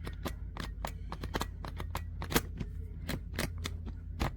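Irregular series of sharp small plastic clicks, a few a second, from the combination dials of a suitcase's TSA lock being turned while its code is reset, with a steady low hum underneath.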